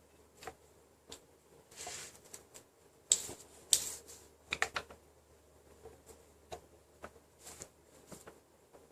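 Scattered light clicks and two short scrapes as a motorcycle speedometer sensor unit is turned and pressed against the front wheel hub, to seat its drive ring in the hub's slots.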